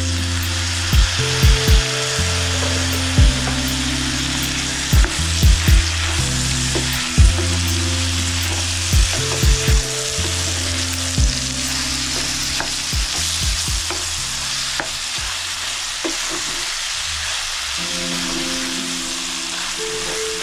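Tripe, peppers and tomatoes sizzling steadily in a frying pan as a wooden spoon stirs them. Background music runs under it, with a drum pattern repeating about every four seconds.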